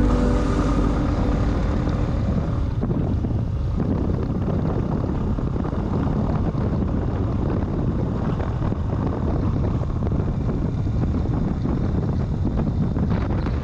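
Steady low rumbling noise with wind on the microphone, like a vehicle under way.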